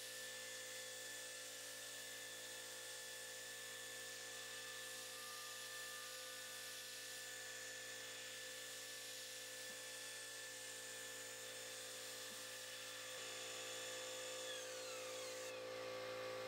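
CNC milling machine cutting aluminium with a carbide end mill: a steady high motor and spindle whine over the cut. About fifteen seconds in the whine drops in pitch as the spindle slows.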